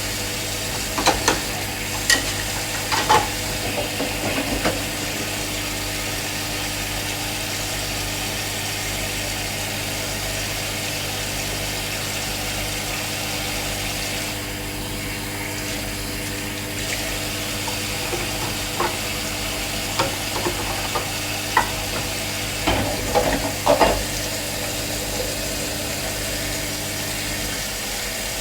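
A steady electric appliance hum, with light clicks and clatter of kitchen things around it; the hum cuts off a second or so before the end.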